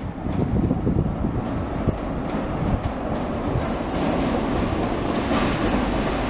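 Train moving slowly past, a steady rumble with the hiss swelling a little after about four seconds.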